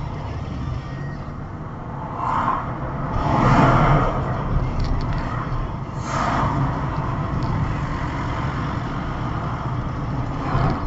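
Car on the move, its engine and road noise heard inside the cabin as a steady low rumble. The rumble swells louder briefly a few times, most strongly about four seconds in.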